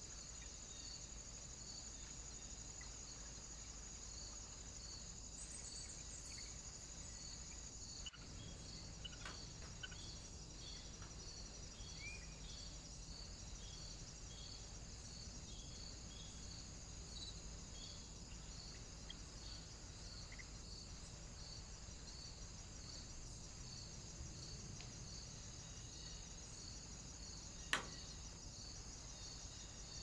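Faint, steady insect chirping in an even repeating rhythm, with a few short faint bird chirps around the middle and one sharp click near the end.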